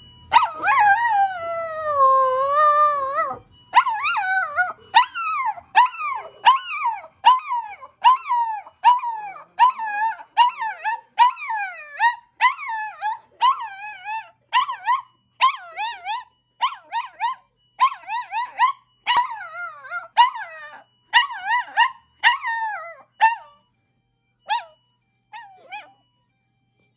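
Small pet dog howling along with an ambulance siren: one long wavering howl, then a long run of short howls that each drop in pitch, about one or two a second, tailing off near the end.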